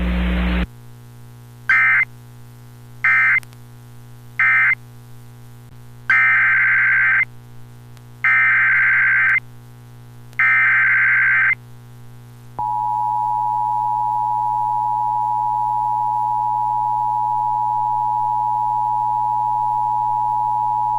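NOAA Weather Radio EAS data tones: three short warbling bursts of SAME digital data (the end-of-message code), then three longer SAME header bursts announcing the next warning. Then, about twelve seconds in, the steady 1050 Hz warning alarm tone starts and holds for about eight seconds. A steady low electrical hum runs underneath.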